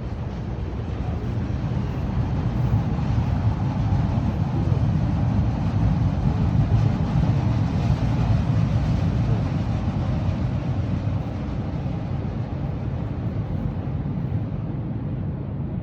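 Steady low rumbling noise that swells over the first several seconds and eases back later, like passing traffic or vehicle noise.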